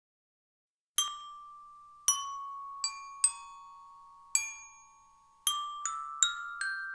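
A slow instrumental melody of single struck, bell-like notes, each ringing on and overlapping the next. It starts out of silence about a second in.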